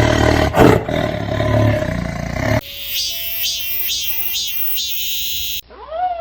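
A big cat roaring, rough and low, cut off abruptly about two and a half seconds in. A different recording follows: rhythmic high-pitched pulses with a few steady tones, then an arching call near the end.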